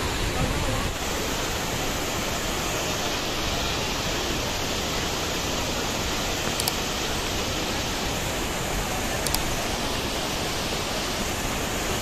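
Rushing water of a swollen, fast-flowing stream and tall waterfall: a steady, even rush with no breaks. Two faint, short high double clicks come about halfway through and again about three-quarters through.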